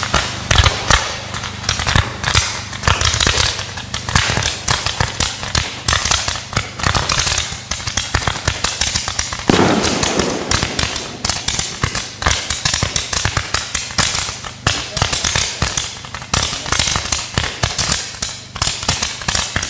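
Fireworks firing in quick succession: a dense, continuous run of sharp shots and crackling, many reports a second, with a louder burst about nine and a half seconds in.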